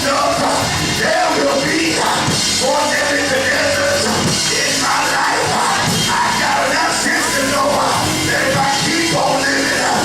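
Loud live music with drums, with voices yelling and singing over it.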